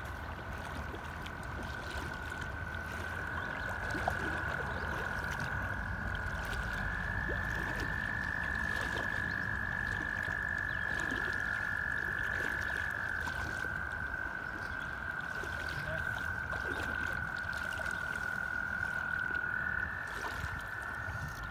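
A continuous animal trilling chorus at a steady high pitch, with several voices at slightly different pitches overlapping and taking over from one another, over a low rumble.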